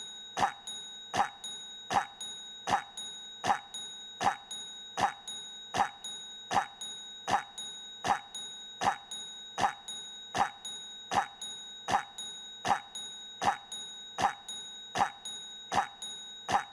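A short cough looped over and over, repeating evenly about every three-quarters of a second, over a steady high whine.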